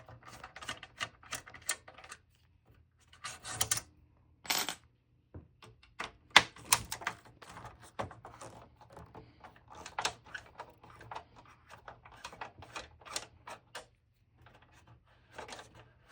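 Irregular runs of sharp clicks and clatter from the plastic and metal parts of an Xbox 360 console being handled and worked apart by hand, with short pauses in between.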